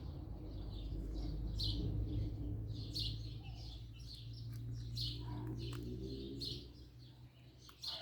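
Small birds chirping, short high chirps one or two a second, over a low rumble that fades out about three-quarters of the way through.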